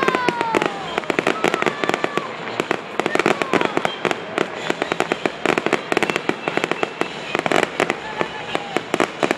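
Fireworks display going off in a rapid, continuous barrage, with many bangs and crackles overlapping.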